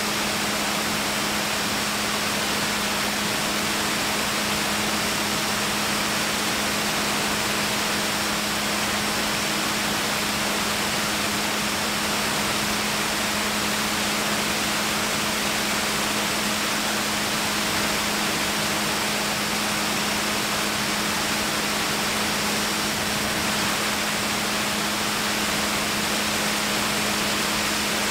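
Steady in-flight aircraft cabin noise: a constant engine drone with a low hum under a broad rush of air, not changing at all.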